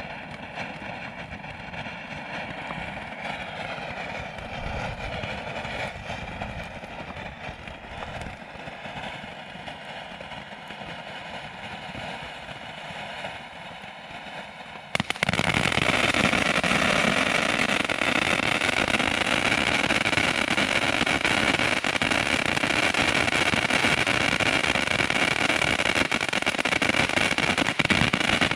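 200 gram firework fountain burning with a steady spraying hiss; about halfway through it switches abruptly to a louder, denser stage, the fountain's crackling effect.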